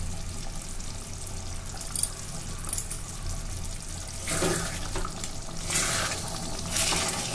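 Thick paneer curry simmering and bubbling in an aluminium kadai, with a low steady hum underneath. From about four seconds in, a metal spatula stirs and scrapes through the gravy in several strokes.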